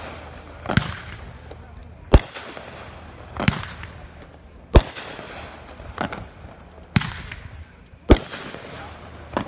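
Consumer fireworks cake firing a steady string of aerial shots, eight sharp bangs about one every 1.2 seconds, each with a short echoing tail and a faint hiss between shots.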